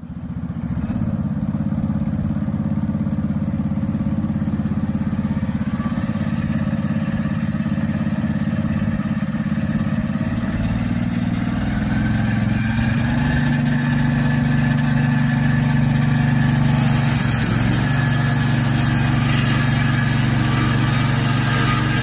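The Briggs & Stratton petrol engine of a portable swing-blade sawmill runs steadily as the blade saws along a Douglas fir log. The engine note shifts a little past halfway, and a brighter hiss from the cut comes in about two thirds of the way through.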